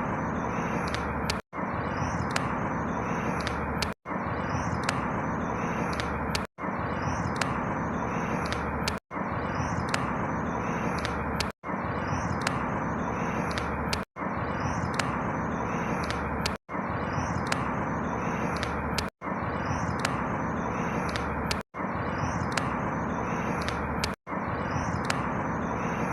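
A short outdoor ambience recording of about two and a half seconds playing as a loop, cutting out for an instant at each repeat, about ten times. Each pass is a steady noise with a few faint high bird chirps.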